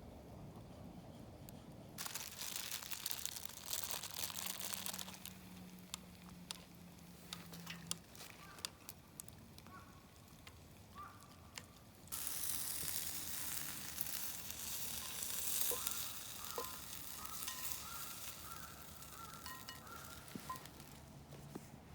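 Wood fire burning in a fold-flat fire pit, hissing and crackling with sharp pops. The hiss swells briefly about two seconds in and again through much of the second half, with faint short whistles among the crackle.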